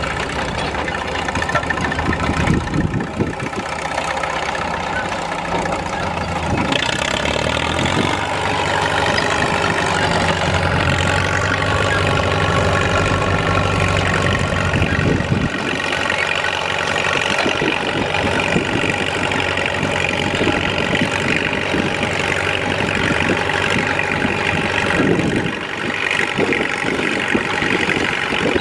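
1941 Caterpillar D2 crawler's four-cylinder diesel engine running steadily under load as it pulls a two-bottom moldboard plow. Its deep rumble drops away a little past halfway.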